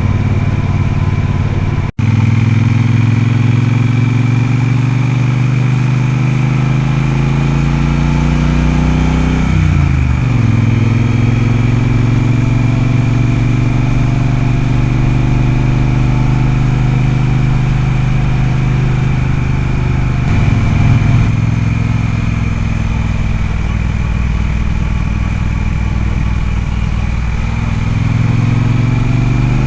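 Triumph Speedmaster's parallel-twin engine running steadily under way. About ten seconds in the revs dip briefly and pick up again, as with a gear change, and they climb near the end.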